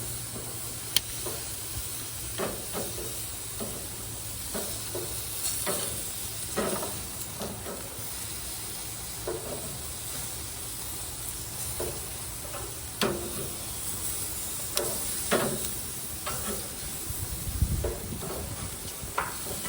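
Chicken and vegetable kabobs sizzling on a hot grill while being turned over, with scattered clicks and clacks of the skewers and tongs against the grill grate and a low thump near the end.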